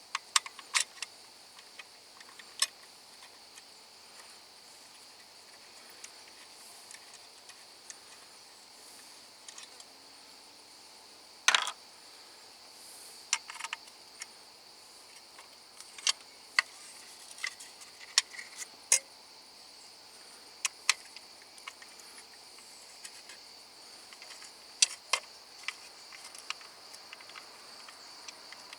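Irregular sharp clicks and light metallic knocks, the kind made by hand tools and parts being handled, with the loudest about eleven seconds in, over a steady high-pitched hiss or chirring.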